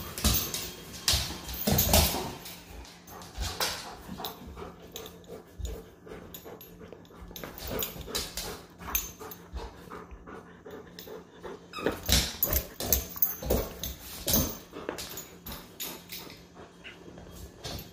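A young dog playing with a rope tug toy on a laminate floor: irregular clicks, scrabbles and knocks of claws and toy on the floor, thickest in the first few seconds and again about twelve seconds in, mixed with sounds from the dog itself.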